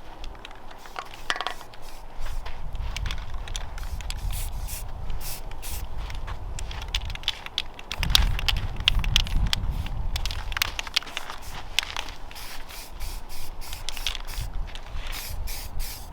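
Primer being sprayed onto hung car suspension parts, in many short hissing bursts over a low rumble.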